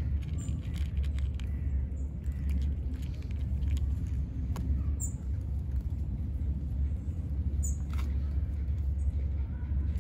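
Cat eating dry kibble from a plastic tub, with scattered crunching clicks, over a steady low rumble. Three short high bird chirps sound, one early, one mid-way and one near the end.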